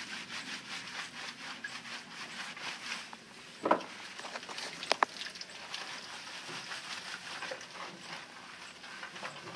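Hands scrubbing a standard poodle's wet, lathered coat: a quick, steady run of rubbing strokes. Two short, louder knocks stand out, a little under four seconds in and again at about five seconds.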